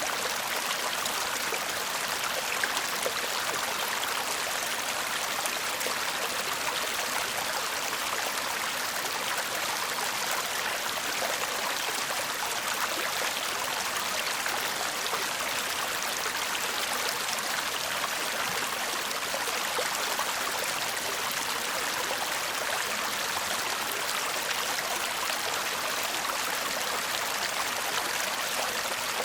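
A shallow brook babbling and trickling steadily, a continuous water rush that sits mostly in the higher range with little low rumble.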